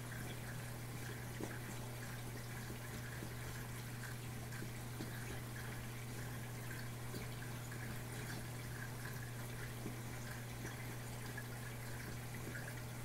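Reef aquarium running: water trickling and dripping over a steady low hum.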